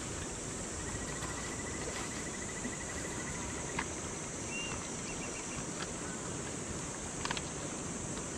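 Outdoor insects: a steady high chorus with one insect's rapid, evenly pulsed trill for a few seconds, then a few short chirps. Several light clicks come from handling the tarp's packaging.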